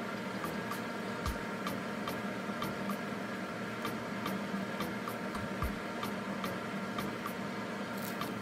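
Background music with a steady ticking beat, about two to three ticks a second, over sustained tones and an occasional low thud.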